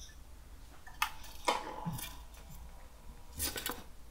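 Steel tweezers and gloved fingers handling a phone's frame: a few sharp clicks and taps, with a quick cluster of them near the end.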